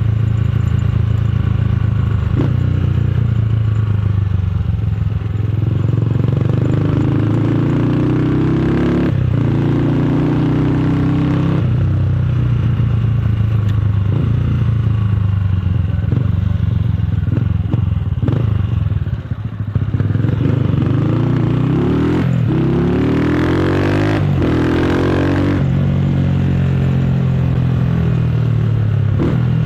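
Motorcycle with a loud aftermarket exhaust, ridden under way. The engine note climbs in pitch and drops back several times, as when shifting up through the gears, and the throttle briefly closes about two-thirds of the way in.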